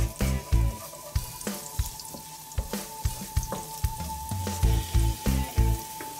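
Chopped garlic sizzling in hot oil in a nonstick wok as it is stirred with a wooden spatula, under background music with a steady drum beat, whose low thumps are the loudest sound.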